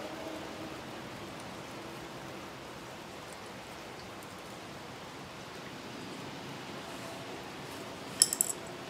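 Steady background hiss of outdoor ambience while a plastic lawnmower recoil starter is handled. Near the end comes a quick cluster of sharp, light clicks.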